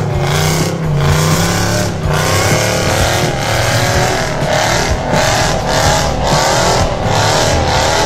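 Off-road 4x4 engine running under load and revving unevenly, its pitch rising and falling.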